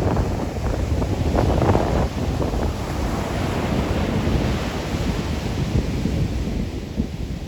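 Rough post-storm ocean surf breaking and washing against a rocky beach, a continuous roar of water, with wind buffeting the microphone.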